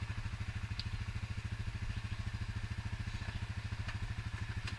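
ATV engine idling steadily with an even low pulsing.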